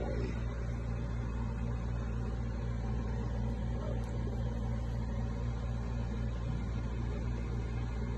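Steady low hum of a running household appliance or fan, even throughout with no distinct events.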